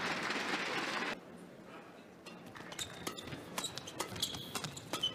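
Crowd applause in an indoor hall for about a second, cut off abruptly. Then a badminton rally: sharp hits of rackets on the shuttlecock and shoes squeaking on the court floor.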